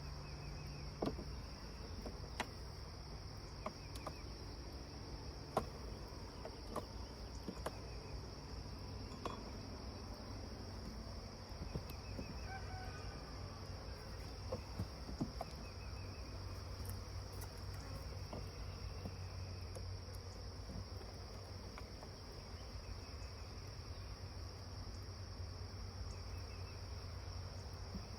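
Steady, high-pitched insect chorus, typical of crickets, with a low hum beneath and scattered sharp clicks and taps, most of them in the first half.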